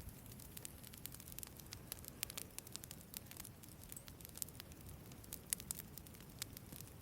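A wood campfire burning, with irregular sharp crackles and pops scattered a few times a second over a faint low rush of the flames.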